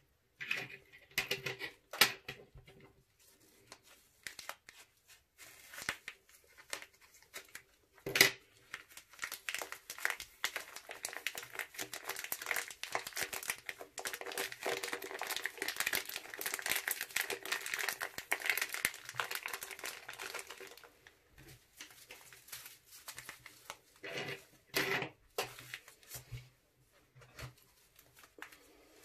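Clear plastic piping bag crinkling as hands squeeze and shake pom-poms out of it onto slime. A few sharp clicks come first, then a long stretch of dense crinkling that dies away, with a couple more clicks near the end.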